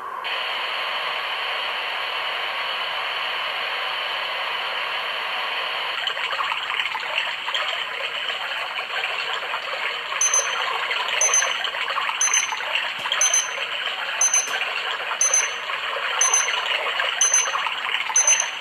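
Tinnitus-relief sound machine playing a recorded running-water nature sound, a steady rushing hiss. About ten seconds in, its wake-up alarm starts beeping over the water, a short high beep about once a second.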